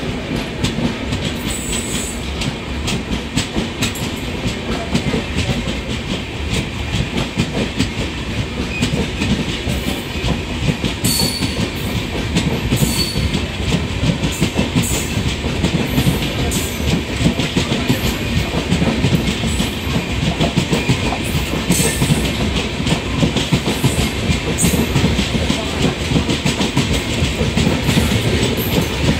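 Coaches of the departing Cholan Express rolling past on the next track, wheels clattering steadily over the rail joints. A few brief high-pitched squeals cut through the clatter.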